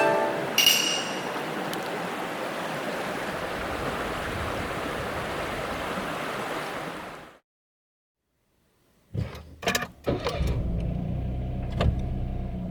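Mountain stream rushing steadily, cutting off abruptly about seven seconds in. After a short silence come a few sharp knocks, then a low steady rumble.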